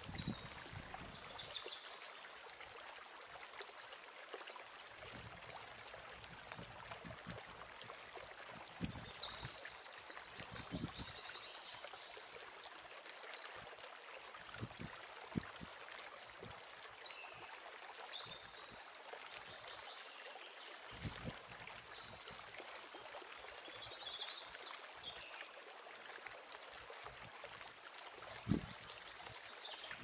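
Steady outdoor background hiss with birds chirping in short phrases every several seconds, and a soft knock near the end.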